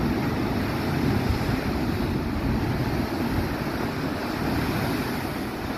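Ocean surf churning and breaking against a rocky shore, a steady rushing noise, with wind buffeting the microphone.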